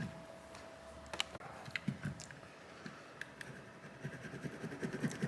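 Faint, irregular clicks and light scraping of a small tool picking and scraping shards of broken screen glass off a phone's frame.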